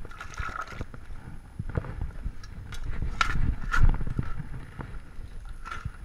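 Irregular plastic knocks and gritty scrapes as stacked plastic sifting screens are handled and a scoop digs wet gravel from a tub, with two sharper clacks a little past three and nearly four seconds in.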